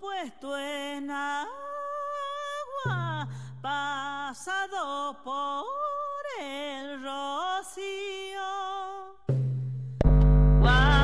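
A woman singing a northern-Argentine copla solo: a high melody of long held notes with bends and ornaments. A low note sounds briefly twice, and a loud accompaniment with a fuller, deeper sound comes in near the end.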